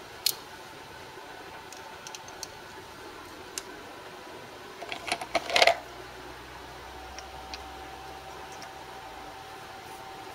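Sharp clicks and clinks of metal parts and tools being handled at a stopped metal lathe, scattered and light at first, with a quick loudest cluster about five seconds in. A faint steady tone sets in after about seven seconds.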